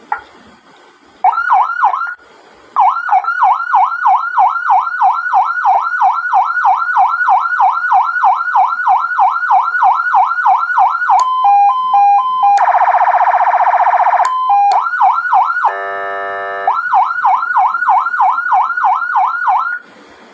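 Electronic police siren unit running through its tones after the repair of a burnt-out transistor. It gives a fast yelp of about three to four rising-and-falling sweeps a second, broken midway by a high-low two-tone and a short steady horn blast, then a lower buzzing tone, before the yelp resumes and cuts off near the end.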